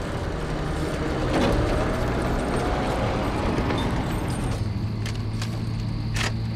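Tow truck engine running with a steady low hum, then a few sharp clicks near the end as the keys jangle in the ignition.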